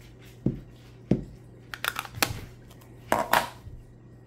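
Light taps and clicks of rubber-stamping supplies being handled on a tabletop, a Memento black ink pad and stamps, with two short scraping rustles around halfway and near the end.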